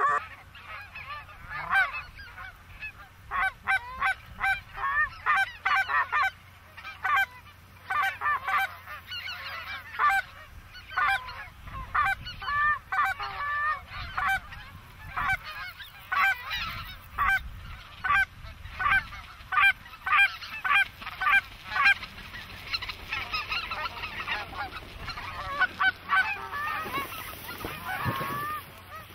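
A flock of geese honking, many short overlapping calls repeating without a break.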